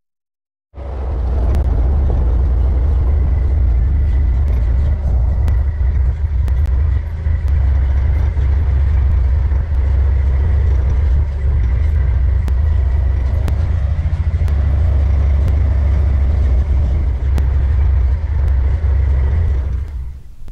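Motor vehicle driving, a loud steady low rumble that starts after a moment of silence and stops just before the end, with a faint high tone and a few light ticks.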